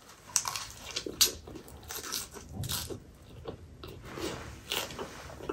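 A mouthful of chicken momo wrapped in lettuce leaves being bitten and chewed. Crisp lettuce crunches come near the start, the loudest about a second in, followed by steady chewing.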